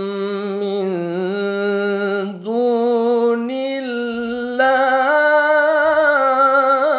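A man chanting the Quran in melodic tilawah style in maqam Nahawand: one long drawn-out phrase of held, wavering notes. The phrase steps up in pitch about two and a half seconds in, then again, and louder, about four and a half seconds in.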